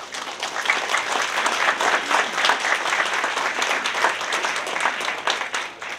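Audience applauding: many hands clapping in a dense patter that starts suddenly and dies away near the end.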